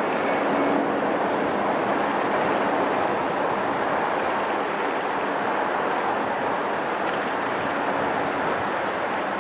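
Steady, even rushing noise of a distant Airbus A330-300's Rolls-Royce Trent 700 turbofan engines as the airliner comes in on final approach with its landing gear down.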